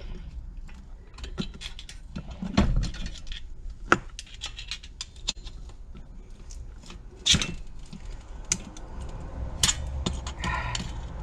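Scattered metal clicks and clinks of hand tools working on the valve springs of an old 12 hp Briggs & Stratton engine, with a few sharper knocks.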